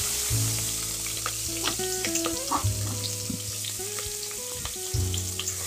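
Sliced onions and green chilies sizzling in hot oil with whole spices in a pressure cooker, with scattered crackles and clicks as they are stirred. Soft background music with held chords plays underneath.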